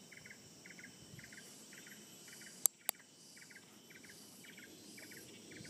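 Insect chirping in a steady rhythm, about two short pulsed chirps a second. Two sharp clicks close together about two and a half seconds in.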